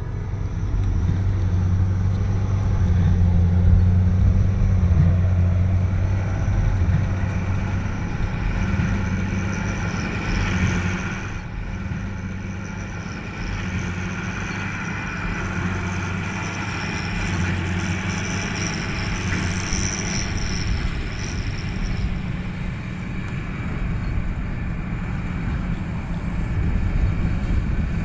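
Diesel tractor engine running steadily under load as it pulls a baler, a deep drone with a fainter, wavering higher whine from the machinery alongside.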